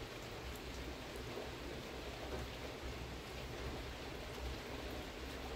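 Steady outdoor background hiss with a low rumble underneath, unchanging throughout.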